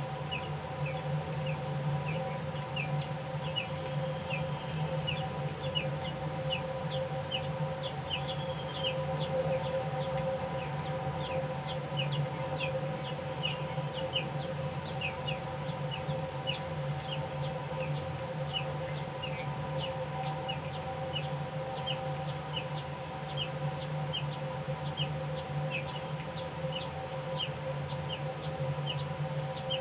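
American robin nestlings begging with short, high chirps repeated about two or three times a second, over a steady low hum.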